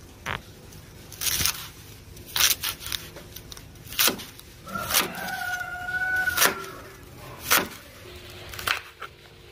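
Kitchen knife chopping spring onions and then a green chilli on a plastic cutting board: sharp knocks, one every second or so. About halfway through, a rooster crows once, a steady call lasting about two seconds.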